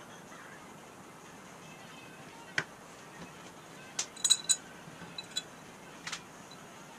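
Light metal clinks and taps as a steel plate is handled and set against the mounting flange of a 1934 Ford steering box: one sharp tap about two and a half seconds in, a quick cluster of ringing clinks around four seconds in, then a few softer taps.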